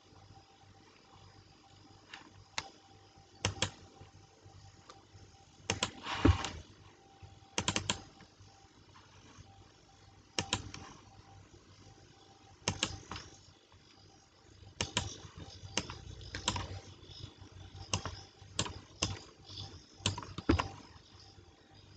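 Computer keyboard keys pressed in short, irregular runs of a few strokes, with pauses of a second or two between runs.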